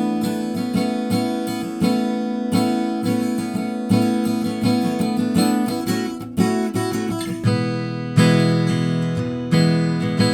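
Taylor GS Mini acoustic guitar being strummed and picked in a steady rhythm, with the chords changing; it becomes fuller and more ringing about three-quarters of the way in.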